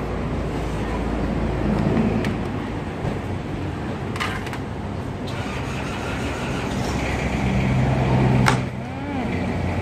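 Motor vehicle engine running close by, a low hum that grows louder and then drops off sharply about eight and a half seconds in. A couple of sharp knocks come about four seconds in and as it drops off.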